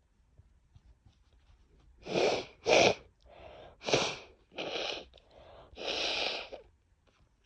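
A woman coming down with a cold sneezing in a quick run: about five sneezes over four seconds, with sharp in-breaths between them. The last sneeze is the longest.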